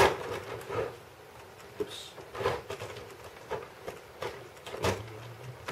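Plastic LEGO Technic parts of a home-built Rubik's cube clicking and knocking as the cube is handled and taken apart, several separate clacks spread out.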